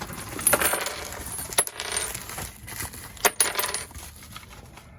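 Small hard sail slugs clinking and rattling together as they are handled, with sharp clicks about half a second, one and a half seconds and just over three seconds in.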